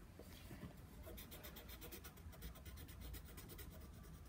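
Faint scribbling of a colouring stick on paper: quick back-and-forth strokes, several a second.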